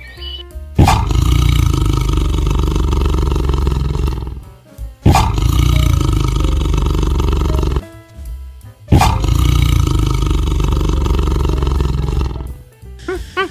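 A large animal roaring three times. Each roar starts abruptly and holds at a steady level for about three and a half seconds.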